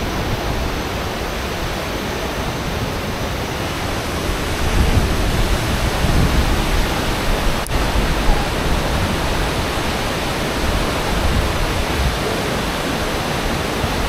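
Thompson Falls and the rocky river below it rushing: a loud, steady wash of falling and tumbling water, heaviest at the low end. A single faint click comes just past the middle.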